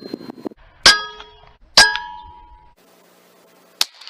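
Two sharp air rifle shots about a second apart, each followed by a short metallic ring, then a fainter sharp click near the end.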